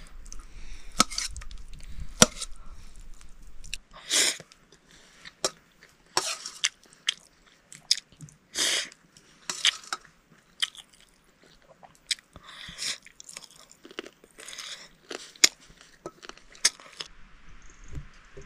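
A person eating a meal of rice and chicken curry: irregular chewing and crunching with sharp clicks and smacks. The sounds stop shortly before the end.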